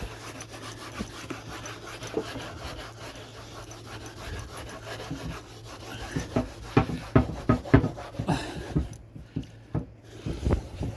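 A towel scrubbing hard on a refrigerator door: a steady rubbing hiss that turns into louder, sharper strokes about halfway through.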